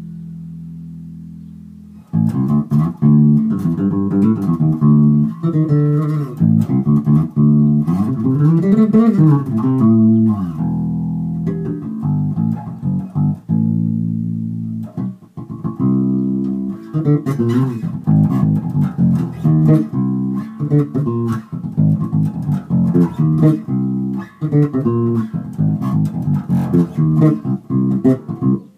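Carvin SB5000 five-string electric bass being played: a held note fades for the first couple of seconds, then plucked notes start suddenly. Partway through the pitch slides up and back down, and the second half is a busier run of notes.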